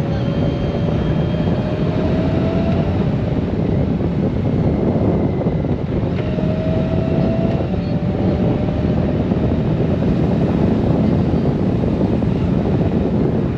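Honda Gold Wing motorcycle riding at road speed: a steady rush of wind on the microphone over engine and tyre noise. A faint whine rises in pitch twice as the bike pulls away.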